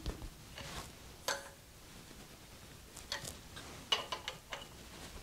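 Light metallic clicks and clinks from hands working on a lathe tailstock as it is adjusted toward the tool to correct a taper: a single click about a second in, then two quick clusters of ticks in the second half.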